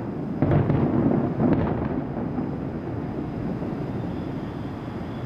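Distant firework shells bursting: a few booms and a low rumble in the first two seconds, dying away into a steady low background rumble.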